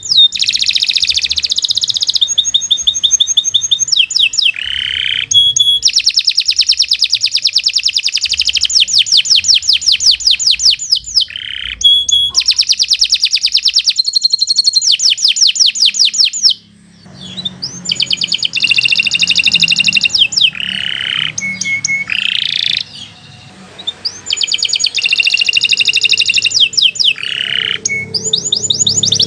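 Domestic canary singing long phrases of fast trills and rapidly repeated high notes, with a brief pause a little past halfway.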